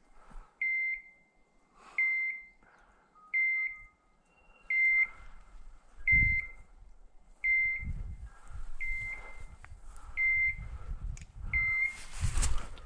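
Hunting dog's beeper collar in point mode: a short, high electronic beep repeating about every second and a half, the signal that the dog has stopped and is holding a point. Rustling and footsteps through dry bracken and undergrowth build up from about halfway through and are loudest near the end.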